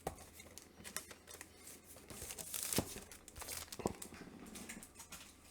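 Soft crinkling of a plastic comic book bag as a comic and backing board are slipped into it, with a few light clicks and taps.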